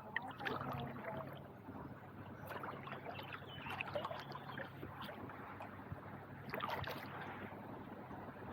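Faint water sounds of a kayak on the move: soft paddle dips and small splashes at irregular intervals, over a faint steady low hum.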